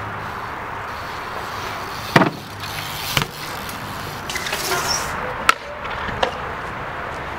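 BMX bike rolling on concrete with a steady rolling noise, broken by several sharp knocks and clacks of the bike's wheels and frame hitting the ground; the loudest comes about two seconds in.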